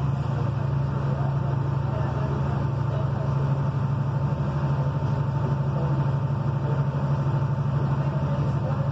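Volkswagen truck's diesel engine running at a steady speed, a constant low hum that does not rise or fall.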